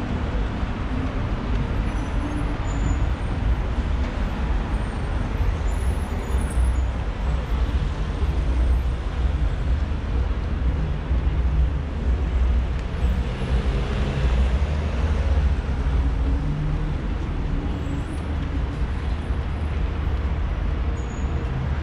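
Busy city-street traffic: buses and cars running past, with a constant low rumble.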